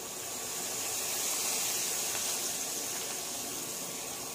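Onions, mint, coriander and ginger-garlic paste sizzling in hot oil in a pan: a steady hiss that swells a little about a second in. The masala is being sautéed until the raw ginger-garlic smell cooks off.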